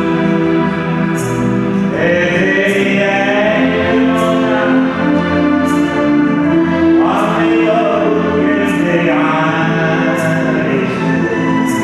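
A man sings to the accompaniment of an electronic keyboard (a Yamaha Clavinova) playing held chords. The voice enters about two seconds in, and faint light high ticks keep time.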